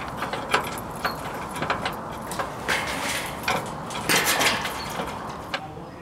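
Steel shipping container doors being unlocked and opened: keys and padlock rattling and the locking bars clanking in a run of metallic clicks and knocks, loudest about three to four and a half seconds in.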